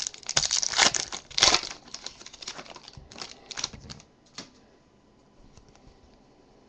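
A 2013 Panini Select football card pack's shiny foil wrapper crinkling and tearing as it is ripped open, with loud dense crackling for about two seconds. This thins to a few scattered rustles and clicks as the cards are slid out, and stops about four seconds in.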